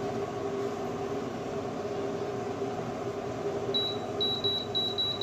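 An electronic cooktop's control panel beeping: a run of about seven short, high beeps starting about three-quarters of the way in, as its buttons are pressed. A steady hum runs underneath.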